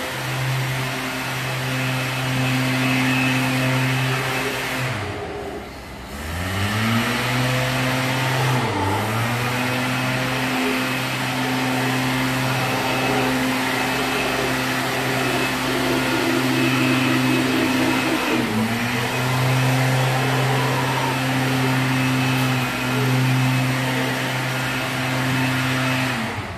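Mantled howler monkeys roaring: long, deep, droning calls held at a steady low pitch. The roar drops away and swoops back up about six seconds in, and dips briefly a couple more times.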